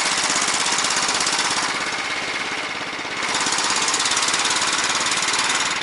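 Small engine of a Bars Sledopyt motorized tow unit (motor dog) running under load with a steady, rapid chugging, pulling a sled loaded with firewood through loose snow. The sound drops a little about two seconds in and picks up again about a second later.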